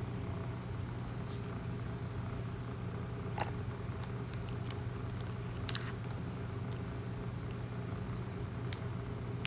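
A few faint clicks and taps of trading cards being handled, over a steady low hum.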